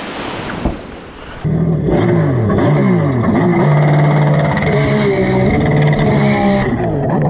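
A rush of noise, then about a second and a half in, loud engines rev, their pitch gliding up and down with two pitches sometimes crossing; most likely the stand-up jet skis' engines.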